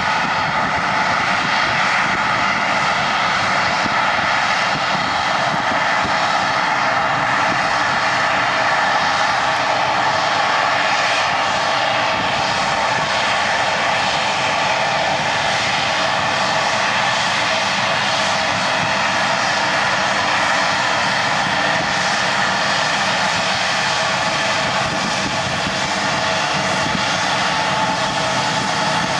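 Jet engines of an Embraer E175 airliner, twin General Electric CF34-8E turbofans, whining steadily at low power as the aircraft taxis. The pitch holds level throughout, with several high tones over a rushing noise.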